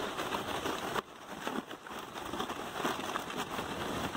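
Plastic sleds sliding and scraping over packed snow: a rough, crackly hiss that drops off sharply about a second in, then picks up again.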